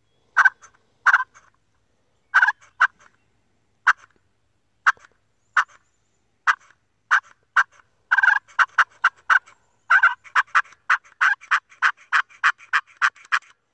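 Primos Bombshell push-pull turkey call giving hen-turkey clucks: single short notes spaced a second or so apart, then from about eight seconds a fast, excited run of them.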